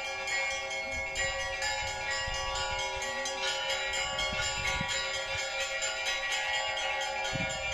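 A peal of church bells: many bells struck in quick succession, their tones ringing on and overlapping.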